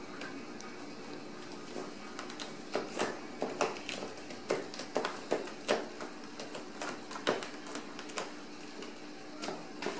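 Kittens' claws scratching and scrabbling on a round cardboard scratcher: irregular scratchy strokes and clicks, several a second at times, over a faint steady hum.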